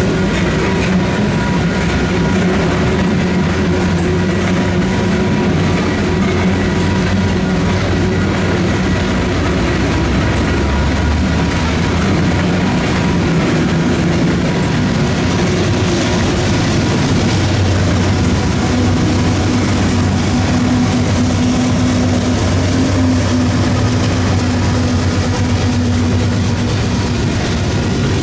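A freight train of covered hopper cars rolls steadily past through a grade crossing while the crossing's electronic bells ring. About two-thirds of the way through, a steady low diesel engine drone joins in, from the train's second locomotive, a GE AC4400CW.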